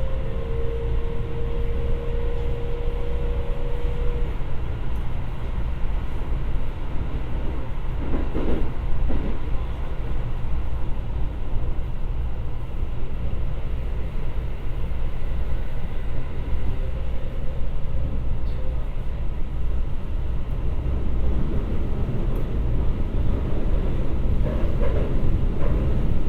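Running noise of a Keikyu 1000 series train heard from inside the car: a steady low rumble of wheels and traction equipment. A steady tone from the Siemens GTO-VVVF inverter sounds for the first few seconds and then cuts out.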